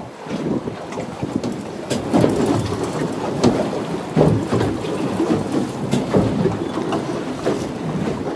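Strong wind buffeting the microphone on a motorboat crossing choppy water, a rough, gusting rumble with water splashing and short sharp cracks of spray.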